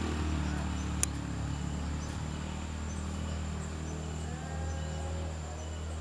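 Outdoor background: a steady low hum like a distant engine, with a thin, steady high whine above it. One sharp click about a second in, and a few faint short calls near the end.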